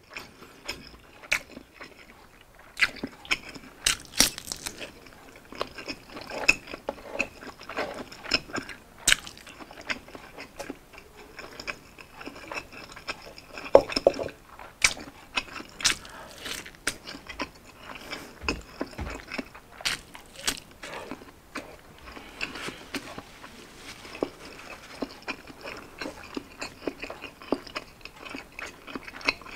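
A man eating Hungarian sausage and light Spam dipped in sauce: biting and chewing, with many small mouth clicks and a louder knock about fourteen seconds in.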